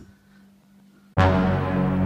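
Faint steady hum, then loud music cuts in suddenly about a second in: a held chord of low sustained notes.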